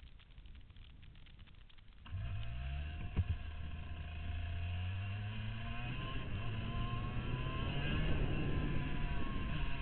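Onboard sound of a 125 cc TM KV95 two-stroke kart engine. Its note cuts in abruptly about two seconds in, then climbs steadily in pitch as the kart pulls away from the pits onto the track. A single sharp knock comes about a second after the engine cuts in.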